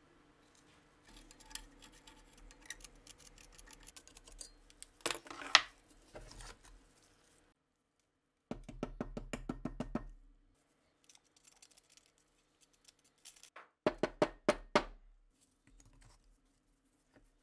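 A thin metal tool scraping and picking at the rusted, caked crud on an old Walther P38 pistol frame, along with the frame being handled against a bench vise. Several short bursts of rapid scratching and clicking, with one sharp knock about five and a half seconds in.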